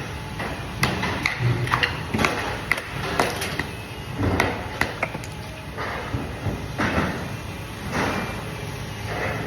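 Irregular knocks and clatter of hard objects being handled, with a few short swells of scraping noise toward the end.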